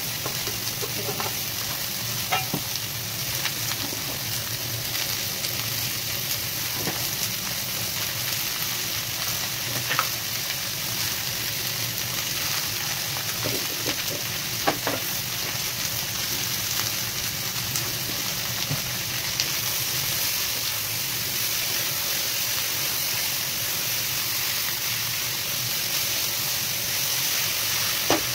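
Sliced potatoes and vegetables sizzling steadily in hot oil in a non-stick kadhai while being stirred with a wooden spatula, with a few sharp knocks of the spatula against the pan.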